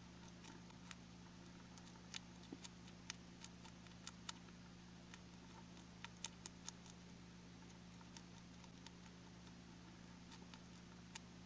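Faint, sparse, irregular clicks and taps as a mole moves about and handles larvae in a white plastic basin, over a low steady hum.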